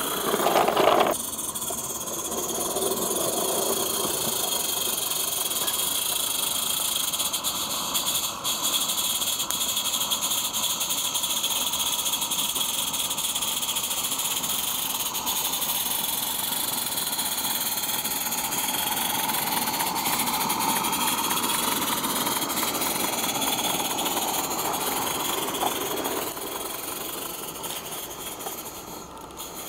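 Live-steam garden-railway locomotive running with a steady hiss of steam, fading near the end as it passes out of earshot.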